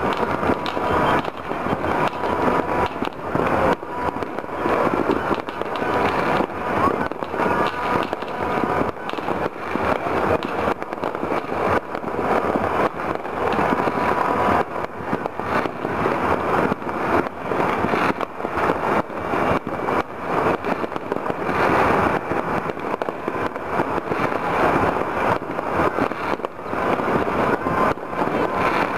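Many fireworks and firecrackers going off at once: a dense, unbroken crackle of overlapping pops and bangs.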